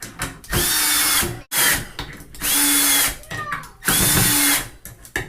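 Milwaukee M12 cordless hex screwdriver (2401-20) running in short bursts, driving 1-inch drywall screws home one after another: three runs of about a second each, with a shorter blip between the first two.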